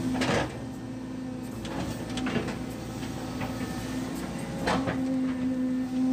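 Excavator engine and hydraulics running steadily, heard from inside the operator's cab, with a hum that grows louder near the end. Three sharp clunks come as the bucket works and dumps soft mud.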